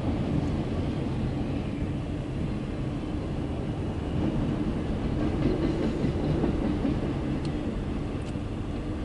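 Empty autorack freight cars rolling past: a steady low rumble of steel wheels on rail, with some clatter from the rail joints.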